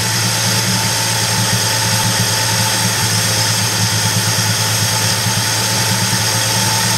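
1986 Ford F-150's 300 cubic-inch inline-six engine idling steadily on a newly fitted carburetor, running smoothly.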